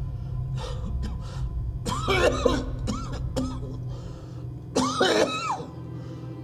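A man coughing and retching over a toilet: two loud, strained heaves about two and five seconds in, with smaller coughs between, over a low droning film score.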